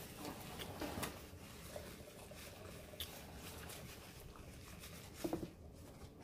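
Quiet eating sounds: a burger being chewed and its paper wrapper handled, with soft crinkles and small clicks.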